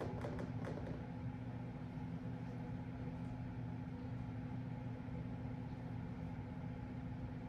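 Quiet room tone with a steady low hum and a few faint ticks in the first second.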